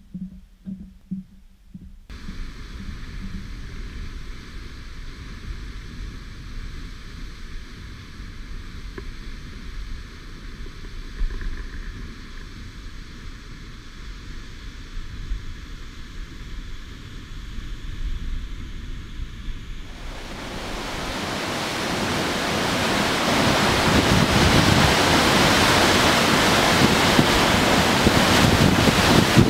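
High Falls on the Pigeon River, a large waterfall, rushing. For most of the time it is a low, distant rumble with wind on the microphone. About two-thirds of the way through it becomes a loud, steady roar. A few soft rhythmic thuds come right at the start.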